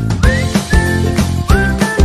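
Background music with a steady beat, a bass line and a high melody whose notes slide up into pitch.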